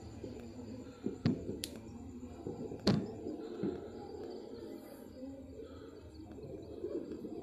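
A hand working inside a wire bird cage to catch a small bird, with a few sharp clicks against the cage wire, the loudest about three seconds in, over a low steady background hum.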